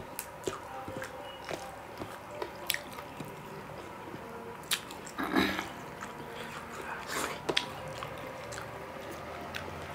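Two people eating rice and rajma curry with their hands: wet chewing and squishing, with fingers working rice on steel plates. Short clicks and smacks come at irregular moments, the loudest about five and a half seconds in and another about seven seconds in.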